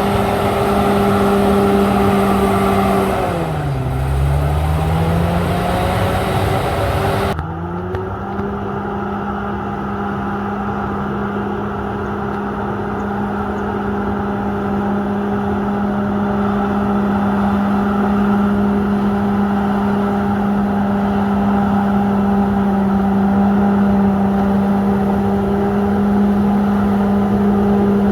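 Komatsu D68ESS bulldozer's diesel engine running at high steady revs. About three seconds in the engine speed sags and then climbs back over the next few seconds. After about seven seconds the sound turns abruptly duller and runs steady again.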